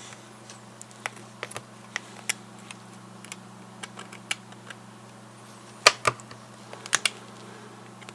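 Knife blade twisting in the seam of a Garmin Nuvi GPS's plastic casing, prying the front frame away from the back frame: irregular small plastic clicks, with louder paired clicks about six and seven seconds in.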